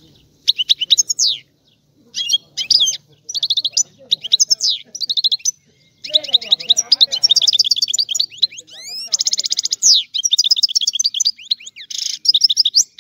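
European goldfinch singing: short phrases of fast, liquid twittering and trills with brief pauses, running on past the middle into a longer unbroken stretch that includes a dense buzzy trill.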